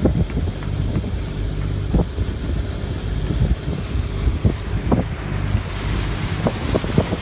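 A Cape Dory 33 sailboat's inboard engine running steadily at low speed, with wind buffeting the microphone and scattered short knocks and splashes.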